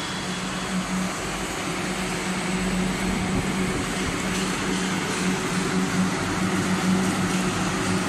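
Heat-pump mesh-belt dryer running: a steady machine hum with a constant low tone over an even rush of fan air.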